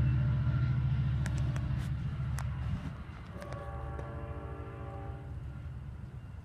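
Amtrak train passing and pulling away, its rumble and wheel clatter fading and dropping off sharply about three seconds in. A horn then sounds for about two seconds as the train recedes.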